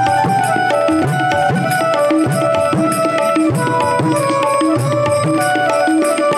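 Instrumental interlude of a Hindi devotional song (bhajan): tabla keeps a steady rhythm, its bass drum bending in pitch on some strokes, under a sustained melody line that steps from note to note.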